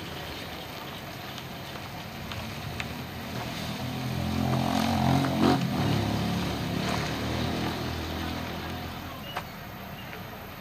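A motor vehicle driving past: its engine sound swells to a peak about halfway through, then fades away.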